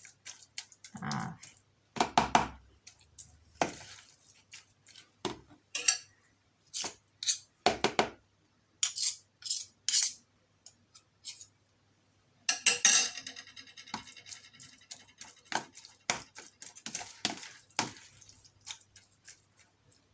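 A spoon stirring grated turnip and honey in a bowl: irregular scrapes and clinks of the spoon against the bowl, with a denser run of ringing clinks about two-thirds of the way through.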